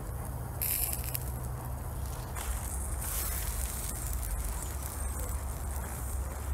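Wood fire crackling with scattered small pops, over a steady low rumble.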